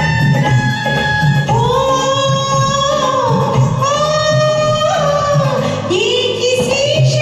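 A woman sings a Hindi film song over instrumental accompaniment with a steady beat. Her voice comes in about a second and a half in, with long held notes that bend in pitch.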